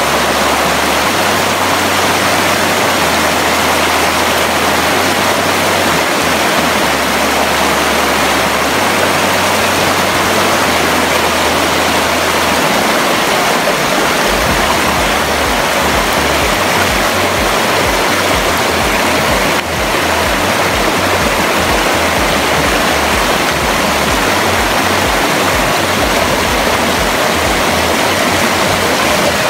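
Shallow rocky river rushing over stones: a loud, steady rush of water, with one brief dip about two-thirds of the way through.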